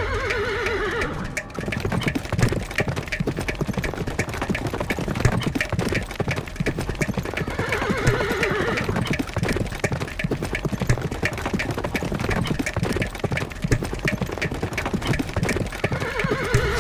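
Horse galloping with rapid hoofbeats, whinnying three times: at the start, about halfway through, and near the end.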